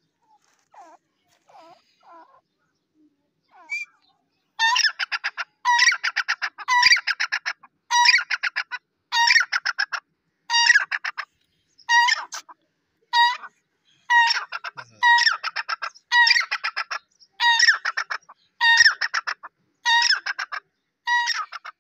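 Grey francolin (teetar) calling: a few soft notes at first, then from about four seconds in a loud call repeated over and over, each phrase a quick run of ringing notes, roughly one phrase a second.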